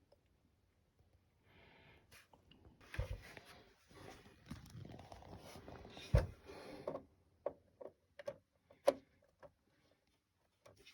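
Rustling handling noise with two soft knocks, then a few short light clicks near the end, as a CPU is handled and set down into its motherboard socket.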